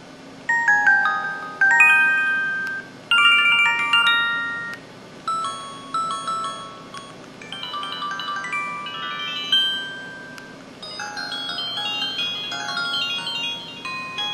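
PG-S1200 mobile phone playing its built-in electronic sound effects: a series of short bell-like chime melodies, one after another, each starting suddenly and fading out.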